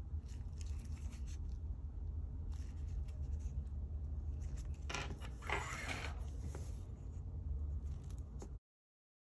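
Small clicks and light handling of iPod Classic parts and tools, with a longer scraping rub about five seconds in, over a steady low hum. The sound cuts off abruptly near the end.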